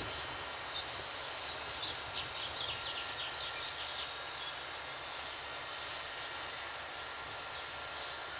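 Steady outdoor background hiss, with a quick run of short high chirps from about one to three seconds in.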